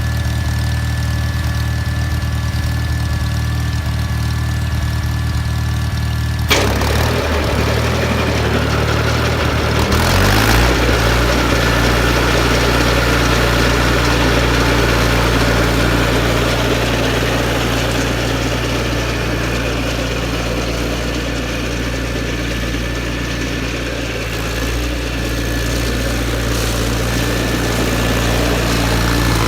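John Deere 318 garden tractor's Onan two-cylinder engine running steadily. About six seconds in a sharp click is heard and a wide rush of noise suddenly joins the engine, and a few seconds later the engine's note shifts and settles.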